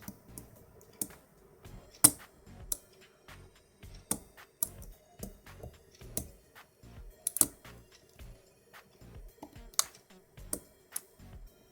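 Lock pick and tension wrench working the pins of a six-pin Green Tech lock: irregular sharp little clicks and taps, about one or two a second, the loudest about two seconds in.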